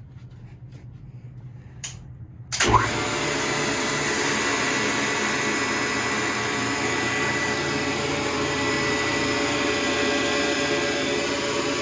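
Elevator machinery starting up as the car is sent upward: a relay click, then a sharp jolt as the motor kicks on, followed by a loud, steady whirring run with a held whine.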